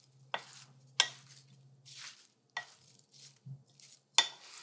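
Wooden spoon tossing diced watermelon, tomato and feta in a glass bowl: several sharp knocks of the spoon against the bowl, with soft wet stirring between them.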